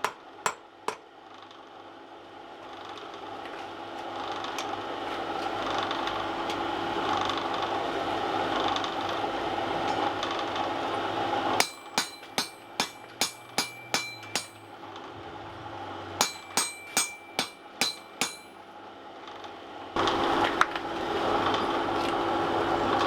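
Hand hammer striking hot steel on an anvil: two blows in the first second, then two runs of about eight and seven ringing blows, roughly three a second, about halfway through. Between and after the blows there is a steady rushing noise that grows louder, stops when the hammering starts, and comes back abruptly near the end.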